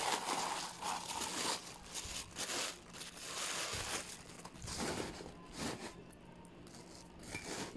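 White packing wrap rustling and crinkling as it is pulled off a cut-glass wine goblet by hand, dying down near the end.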